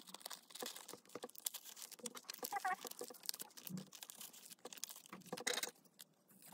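Plastic binder pocket pages rustling and crinkling as photocards and pages are handled, a quick, uneven run of small crackles and clicks.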